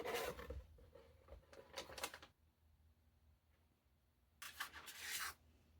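Handling sounds of a KSC M93R model pistol being taken apart: a short clatter at the start, a few quick clicks about two seconds in, and a longer rubbing, scraping sound near the end, with quiet between.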